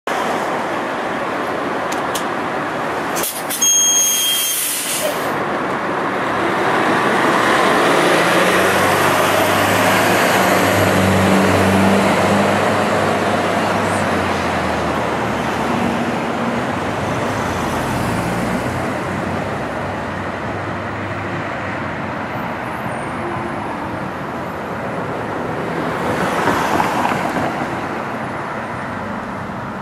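City transit bus pulling away from a stop: a loud burst of air hiss about four seconds in, then its engine revving as it accelerates off. Passing car traffic follows, with one vehicle going by near the end.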